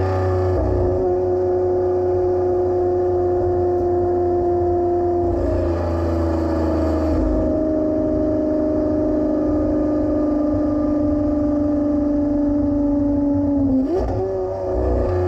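Lamborghini Aventador SVJ's naturally aspirated 6.5-litre V12 running under way with a deep rumble and a steady, slowly sinking engine note. About fourteen seconds in the pitch dips and then jumps up, as with a gear change.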